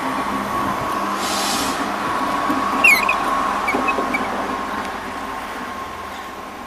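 DB class 611 diesel multiple unit running past at low speed, its diesel engine giving a steady hum with a constant whine above it. A brief hiss comes about a second in, and short high wheel squeals with a click about three seconds in.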